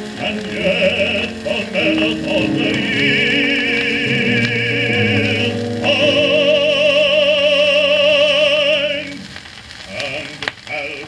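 Baritone voice singing in operatic style with wide vibrato, played back from a 78 rpm shellac record with faint surface hiss. A long note is held from about six seconds in until about nine, followed by a short lull.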